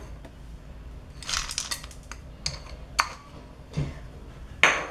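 Dry dog kibble rattling as it is scooped with a plastic cup and poured into a bowl: a quick run of small clicks, then a few single clacks, the loudest near the end.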